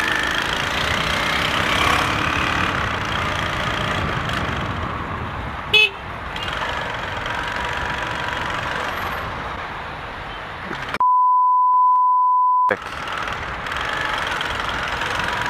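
Motorcycle engine and road noise riding through city traffic, with a short horn toot about six seconds in. About eleven seconds in, a steady censor-bleep tone replaces all other sound for under two seconds.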